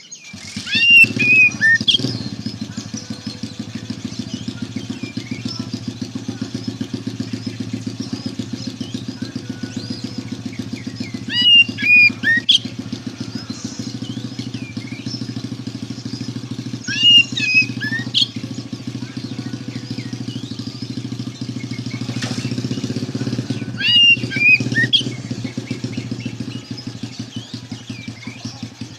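Oriental magpie-robin (kacer) singing loud whistled phrases of sharp notes and glides in four bouts about six seconds apart. A steady low motor-like drone with a fast, even pulse runs beneath the song.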